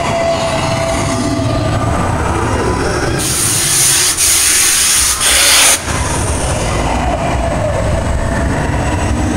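Ride vehicle rumbling along its track, with a loud hissing rush from about three to six seconds in.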